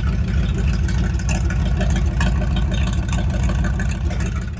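The Ranger's engine idling with a loud, steady rumble through its newly built exhaust: headers into a 2.5-inch collector and straight out to a 3-inch pipe. The rumble drops in level sharply near the end.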